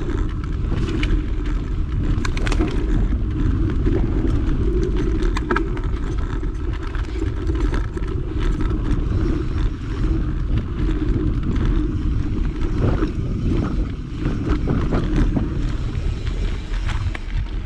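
Mountain bike being ridden: a steady low rumble of tyres and wind noise, with scattered clicks and rattles from the bike over the ground.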